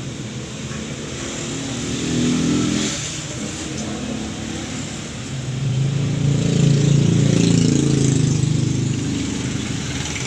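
A motor vehicle engine running, growing louder for a moment about two seconds in, then swelling again for a few seconds from about six seconds in.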